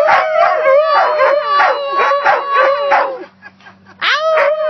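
A husky and a wolf hybrid howling together: one holds a long, steady howl while the other adds shorter howls that rise and fall about three times a second. They break off about three seconds in and start howling again near the end.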